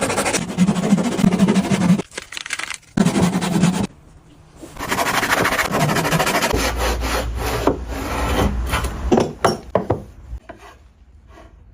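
A hand tool working wood: rapid scraping strokes, sawing or rasping, that break off briefly twice and die away near the end.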